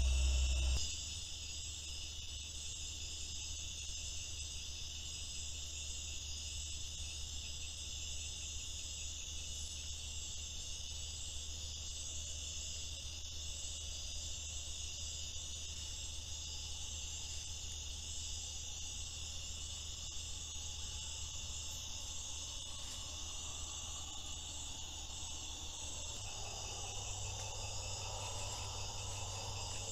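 Dense, steady night chorus of crickets and other insects, a high-pitched trilling over a low steady hum. A fainter, lower calling joins in the last few seconds.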